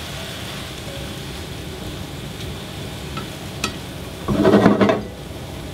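Diced onion, scallion and sweet pepper sizzling steadily in oil in a nonstick frying pan, with a few light clicks. About four seconds in, a slotted spatula stirs the vegetables around the pan in a louder burst lasting about a second.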